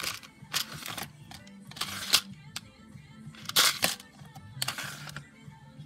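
Small plastic organizer drawers sliding open and shut several times, with clicks and Lego pieces rattling inside. Soft background music runs underneath.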